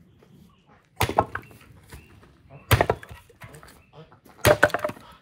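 Axe splitting firewood logs on a wooden chopping block: three heavy chops nearly two seconds apart, each a sharp crack of the wood splitting followed by the split pieces knocking down.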